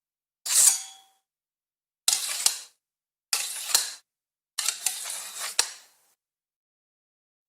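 Four sword draws, one after another, each a metal blade scraping out of its sheath. The first fades with a faint ringing tone, and the next three are longer scrapes marked by sharp clicks, the last running over a second.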